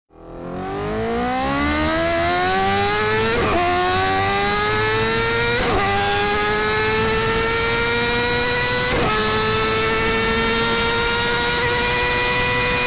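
Honda CBR1000RR's inline-four engine accelerating hard through the gears, its pitch climbing steadily. It is broken by three quick upshifts, each a brief dip in pitch with a short crackle, and after each one the climb is slower.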